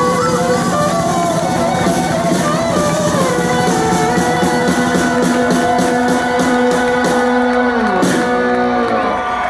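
Live blues-rock band closing a song: electric slide guitar holds and slides long notes over drums, sweeping down into a final hit about eight seconds in.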